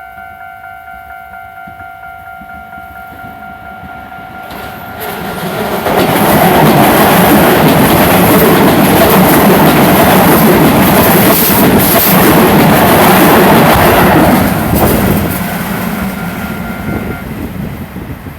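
A level-crossing warning bell rings in steady pulses, a couple of strikes a second. About five seconds in, Keisei 3700 series and 3000 series trains pass each other through the crossing. Their loud rumble and wheel clatter lasts about eight seconds, then dies away, and the crossing bell stops near the end.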